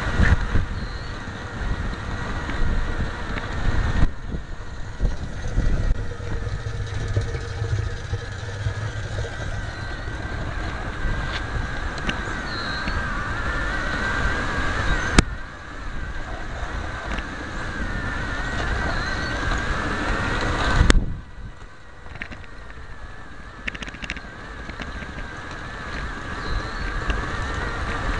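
Bachmann rail truck's small electric motor and gear drive whining steadily as the model runs along the track, heard close up from a camera riding on top, with wheel rumble and a few sharp clicks. The sound gets quieter about 21 seconds in.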